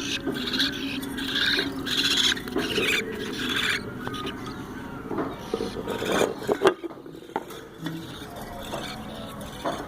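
Parrot chick making a run of short, raspy begging calls, roughly one every 0.7 seconds, which stop about four seconds in; a few sharp clicks follow.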